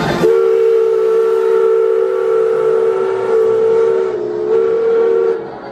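Steam locomotive whistle sounding one long blast of two notes together. It dips slightly in pitch for a moment about four seconds in, then cuts off just before the end.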